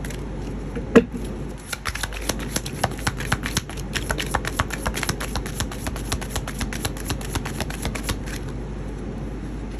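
A deck of Bible scripture cards being shuffled by hand: a quick run of card clicks and slaps, about six a second, that starts about two seconds in and stops near the end, after a single sharper tap about a second in.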